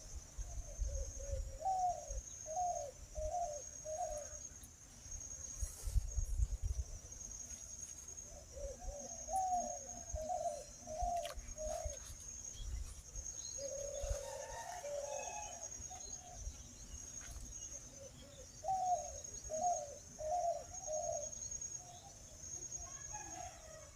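A dove cooing in four phrases of four or five low notes each, with a steady high insect buzz behind it.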